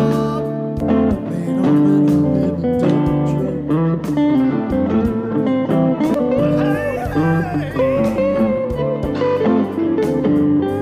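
Fender Stratocaster electric guitar played through a Boss Acoustic Singer Live amplifier: blues lead lines with bent notes over steady low notes.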